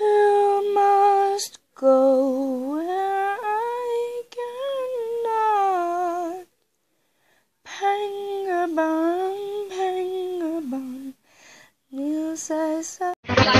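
A lone high voice humming a slow, wordless melody in four phrases with short pauses between them.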